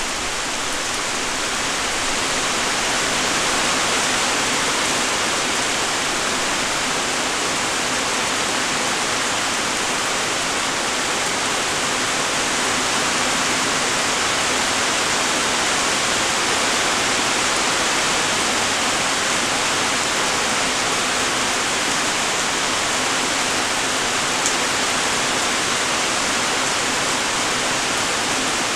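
Steady light rain: an even, unbroken hiss of many small raindrops, with one sharper drop click about three-quarters of the way through.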